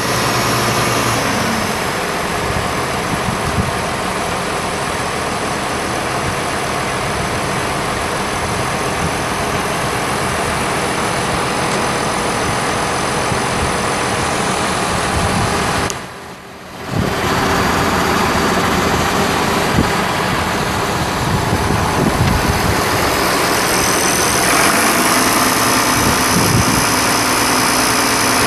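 International 1086 tractor's DT414 six-cylinder turbo diesel running steadily. The sound drops out briefly about halfway through, then resumes.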